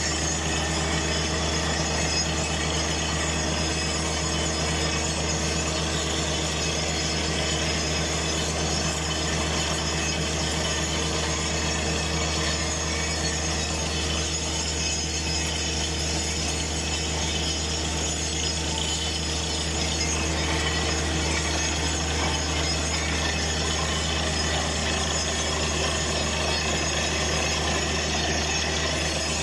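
Truck-mounted borehole drilling rig running steadily, its engine and compressor giving a constant low drone. Over it is the hiss of water and cuttings being blown up out of the borehole around the drill pipe.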